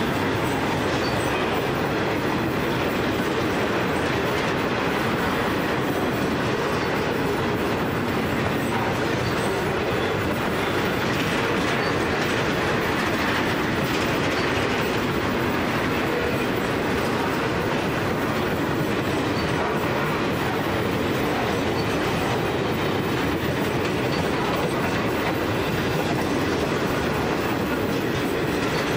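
Empty grain hopper wagons rolling past, a steady, unbroken noise of wagon wheels on the rails.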